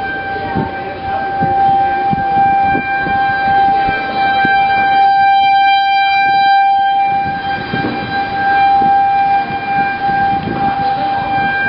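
Outdoor tornado warning siren holding one steady pitch that swells and fades slightly, as a rotating siren does, over rough wind and rain noise.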